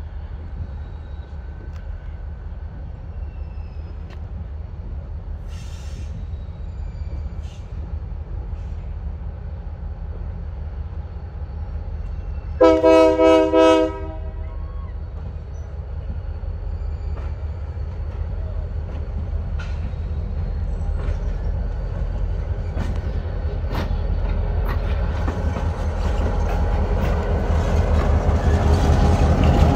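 Utah Railway diesel locomotive approaching, its rumble growing steadily louder as it nears. It sounds one short horn blast a little under halfway through.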